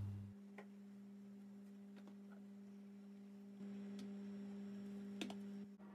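A faint, steady hum with a few faint clicks.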